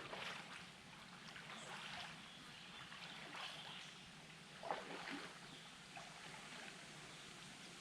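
Faint water trickling and lapping around a canoe, with a few soft knocks, the loudest about four and a half seconds in.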